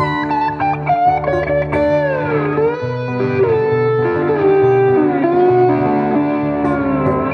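Blues instrumental break: an electric guitar playing a lead line of held notes that bend up and down in pitch, over a steady low accompaniment.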